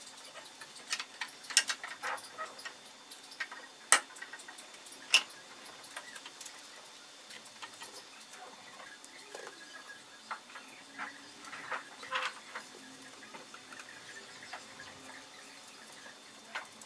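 Scattered sharp wooden clicks and knocks as the birch uprights and rails of a shelving unit are handled and fitted onto a cabinet. The loudest few come in the first five seconds.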